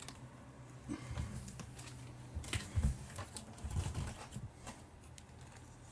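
Comic books being handled and set down: scattered light taps and rustles with a few soft thumps.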